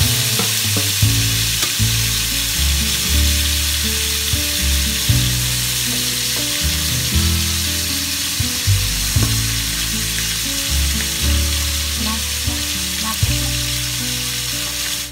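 Milkfish belly pieces sizzling steadily as they fry in hot oil in a stainless steel pan, with a few light clicks, under low background music.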